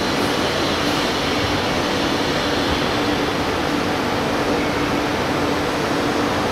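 Unisign Univers 4000 CNC machining centre running as its spindle head traverses: a steady mechanical hum and hiss with a constant low tone.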